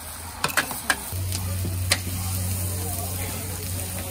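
Fried radish cake and egg sizzling on a large flat steel wok, with metal spatulas scraping and clanging against the pan. Several sharp clangs fall in the first two seconds, over a steady low hum.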